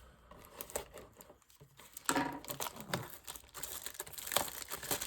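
Crinkling and tearing of packaging as a baseball-card blaster box is opened: quiet at first, then irregular rustles and crackles from about two seconds in.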